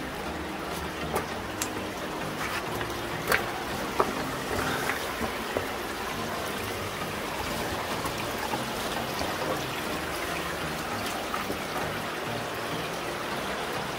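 Creek water trickling steadily over stones, with a few sharp footstep clicks on the wet rocks in the first few seconds.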